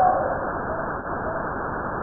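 'Sound of space' recording: a steady rushing hiss with faint held humming tones in the first second that fade away, made by converting electromagnetic emissions into audible sound.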